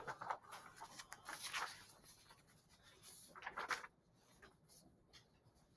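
Scratchy writing strokes, a pen or marker moving over a surface in a run of short strokes for the first four seconds or so, then only faint scattered ticks.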